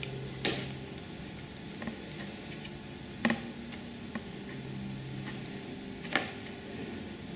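Quiet handling of brown paper and a hardcover notebook as the paper is folded and pressed around the corner, with three short sharp clicks about three seconds apart.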